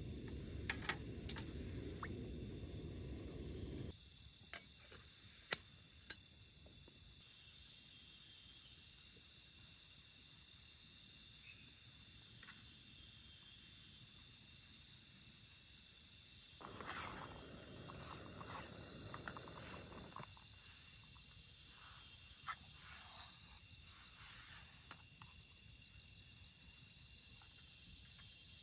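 Night insects, crickets, chirping steadily in high, continuous tones. A low steady noise runs underneath for the first four seconds and cuts off abruptly, then comes back for about three seconds past the middle, with a few light clicks here and there.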